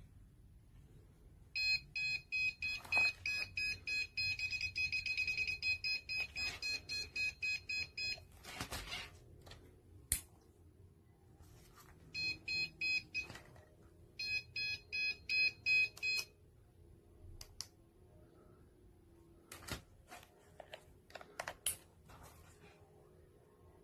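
KAIWEETS multimeter and cable-tester kit beeping: rapid electronic beeps, several a second, in three runs, the first about six seconds long and two shorter ones later. Handling clicks and knocks come in between.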